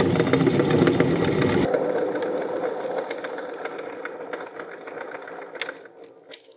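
Metal meat grinder running and grinding soft cookies into crumbs, a dense mechanical churning with a fine rattle. It changes abruptly less than two seconds in and then fades away gradually, with a single click near the end.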